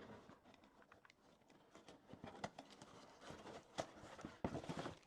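Unboxed items and packaging being handled on a tabletop: scattered light knocks and clicks, with louder knocks near the end.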